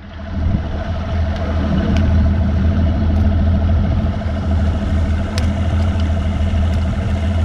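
Mercury outboard motor running steadily as the boat moves along, with a few faint clicks from tackle being handled.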